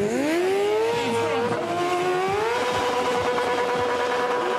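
Stunt sportbike engine with its revs climbing over the first two and a half seconds, then held high and steady while the rear tyre spins on the pavement.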